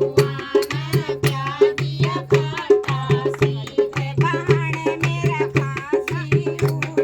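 Haryanvi folk song: a hand drum beats a quick, steady rhythm under a wavering melody.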